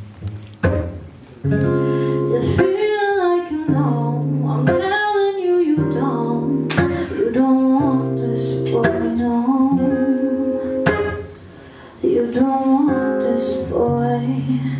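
A woman singing a song to an acoustic guitar accompaniment, with a short pause in the voice about eleven seconds in.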